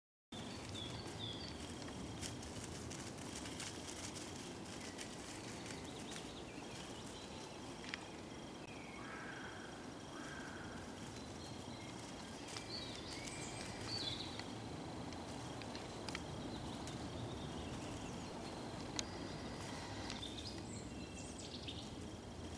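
Woodland ambience: a steady low background noise with short chirping calls scattered through it, in small groups near the start, around the middle and near the end, and a few faint clicks.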